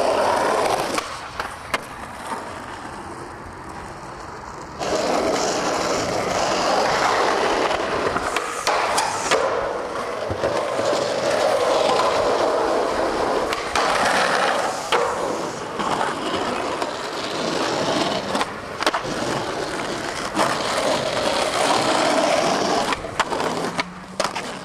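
Skateboard wheels rolling over concrete and asphalt, broken by several sharp clacks of the board popping and landing, in a few short takes.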